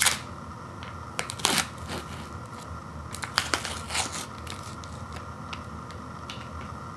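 Thin plastic inner seal being peeled off the top of a frozen ice cream pint, crinkling and crackling in short rustles: one right at the start, another about a second and a half in, and a last cluster about three and a half to four seconds in.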